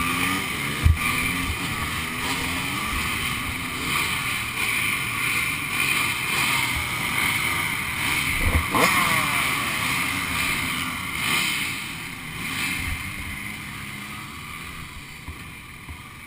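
Several dirt bike engines running and revving, the sound fading as they pull away over the last few seconds. Two short thumps, about a second in and about eight and a half seconds in.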